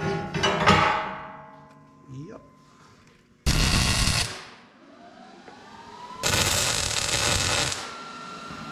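Steel plate set down on a steel excavator bucket with a clang and ringing, then two short bursts of stick (arc) welding crackle as the plate is tacked in place, the second about twice as long as the first.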